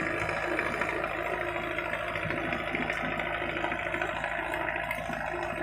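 A steady engine running at an even pitch, a constant hum with a dense rumble underneath.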